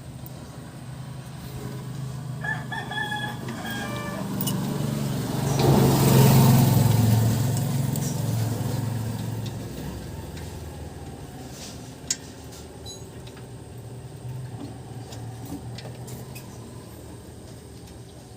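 A rooster crows about two and a half seconds in. Then a passing vehicle's low rumble swells to a peak about six seconds in and fades away, with a single sharp click near the end.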